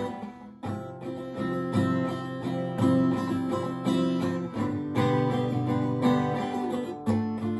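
Acoustic guitar playing alone, chords plucked and strummed in a steady rhythm, with a short break about half a second in.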